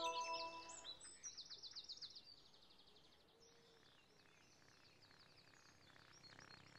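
Faint birdsong: quick trilled chirps, then sparser, fainter chirps, while a held music chord dies away within the first second.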